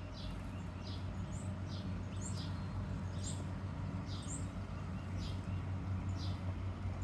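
A bird repeating short, high, down-slurred chirps, about one or two a second, over a steady low hum and a faint hiss.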